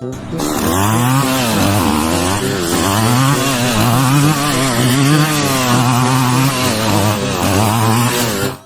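A small engine running loudly and without a break, its pitch wavering up and down as if under changing load.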